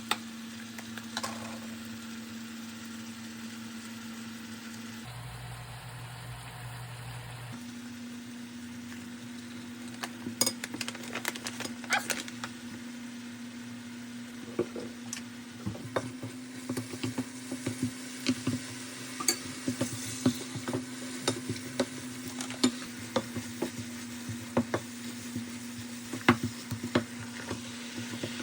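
Food frying in a pan while a spatula stirs it, clicking and scraping against the pan from about ten seconds in, over a steady hum.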